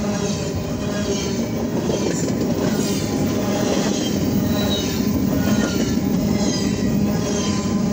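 Freight cars of a BNSF manifest train rolling past close by, steel wheels running on the rails in a loud, steady din with thin high-pitched squeals wavering in and out.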